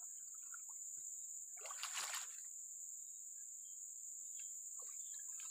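A large snakehead splashing once at the water's edge as it is lifted out, about two seconds in, over a steady high-pitched insect chorus.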